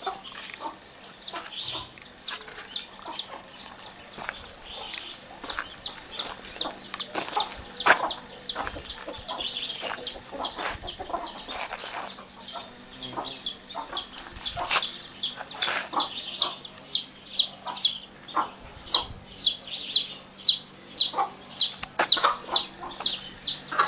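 Domestic chickens clucking and chirping, with high, quick chirps repeating about two or three times a second that grow louder in the second half.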